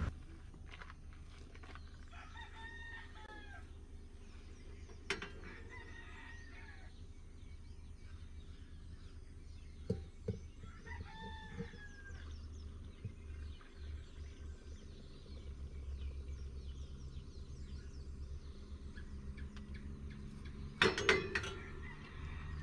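A rooster crowing three times over a low steady hum, with a few knocks of a steel pot being handled and a louder clatter near the end.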